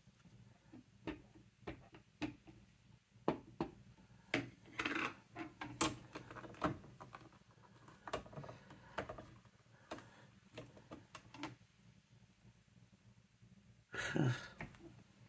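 Scattered clicks, taps and light knocks of stamping tools being handled on a craft table as letter stamps are moved, inked and pressed, with a short louder scuffing noise near the end.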